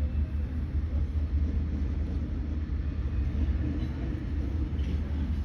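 Steady low rumble of a freight train passing very slowly.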